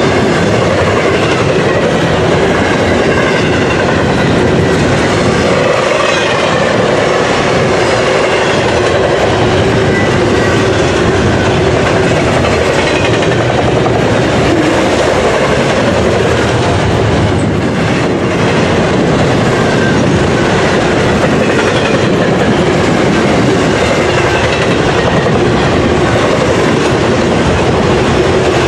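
Double-stack intermodal freight train's well cars rolling past at close range: a loud, steady rush of steel wheel and rail noise.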